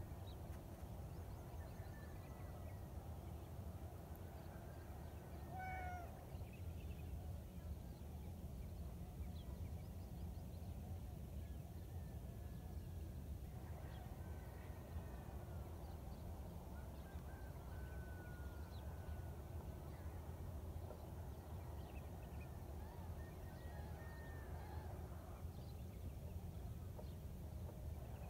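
Cats meowing faintly a few times at intervals over a steady low outdoor rumble.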